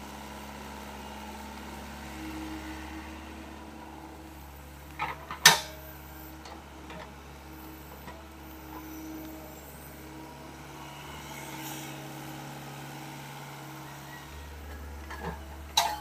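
SDLG mini excavator's diesel engine running steadily under hydraulic digging load, its drone swelling slightly now and then as the arm and bucket work the soil. A few sharp knocks about five seconds in, the loudest event, and another near the end.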